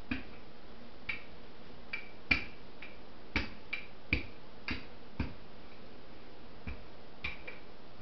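Irregular sharp clicks and knocks, about a dozen, from a wooden rolling pin working dough thin on a floured counter mat; the loudest comes a little over two seconds in.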